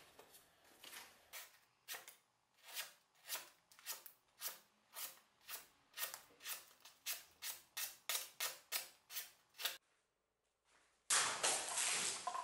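Restored carpenter axe blade slicing through a hand-held sheet of paper, a crisp papery cut about twice a second, repeated some twenty times: a sharpness test. Near the end comes a much louder burst of noise.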